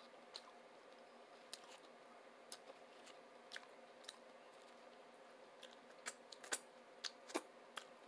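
Close-up chewing of a loaded tuna sub sandwich: scattered soft, wet mouth clicks and smacks, more of them near the end, over a faint steady hum.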